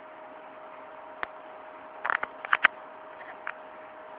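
A handful of sharp plastic clicks of buttons being pressed on a netbook and keyboard: one about a second in, a quick run of four or five around two seconds, then a couple of fainter ones. A faint steady whine sits underneath.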